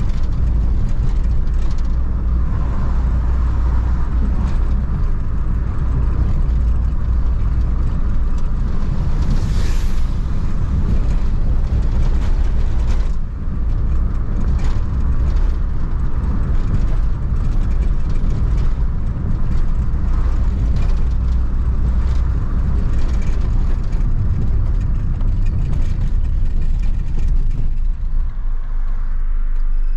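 Renault Kangoo van's 1.4-litre engine and road noise heard while driving: a steady low drone with frequent knocks and rattles. The drone drops near the end.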